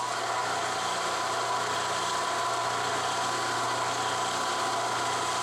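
Milling machine's spindle motor running at steady speed with a drill bit turning in the spindle, making an even hum and whine.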